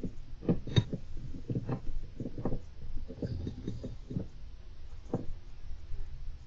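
A golden hamster scrabbling and scratching about, heard as a run of irregular light taps and scrapes over a low steady hum.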